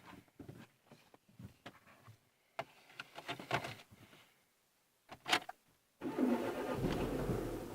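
Renault Mégane II steering rack knocking: irregular dull knocks and clicks, the loudest about five seconds in, the sign of a worn steering rack. About six seconds in, a steady mechanical running noise starts abruptly.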